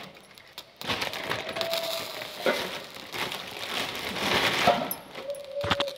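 Rustling, scraping handling noise from fingers rubbing over a phone and its microphone, starting about a second in, with scattered clicks.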